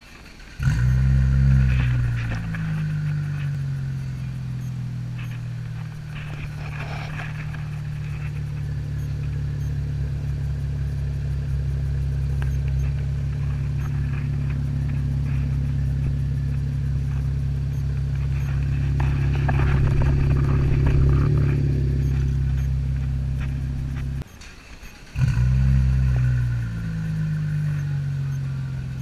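Cadillac ATS-V's twin-turbo V6 starting with a loud flare and settling into a steady, deep idle through catless downpipes, midpipes and a muffler delete. About 24 seconds in it shuts off and is restarted a second later with another flare, then idles again.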